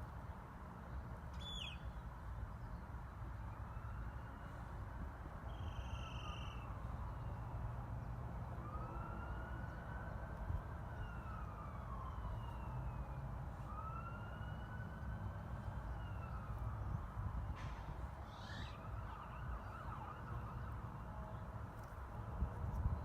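Emergency-vehicle siren wailing, rising and falling slowly in a few long sweeps a few seconds each, that begins a few seconds in and fades out after the middle, over a steady low rumble.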